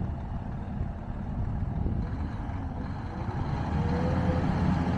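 A low, steady engine-like rumble, with a faint thin whine rising in over its last couple of seconds.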